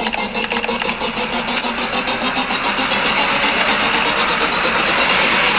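Soundtrack of an Instagram reel played back on a phone: a dense rush of noise with rapid ticks in the first half, slowly swelling in loudness.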